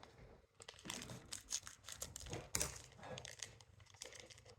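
A small plastic powder packet from a Popin' Cookin' candy kit crinkling as it is handled and torn open, a quick irregular run of crackles starting about half a second in.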